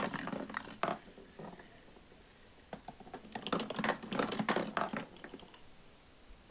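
Hard plastic peek-a-boo balls dropped into a plastic dinosaur ball-ramp toy, clicking and clattering as they fall through the holes and roll down its track, in a quick irregular run of knocks that is busiest about three to five seconds in.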